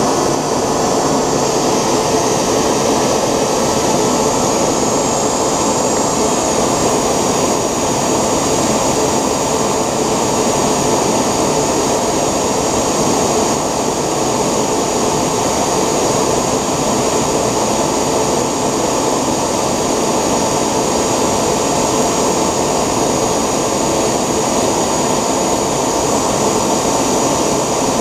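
3D-printed model gas-turbine jet engine running steadily at about 1 bar fuel pressure: a constant rush of air with a steady high whine, holding the same speed throughout.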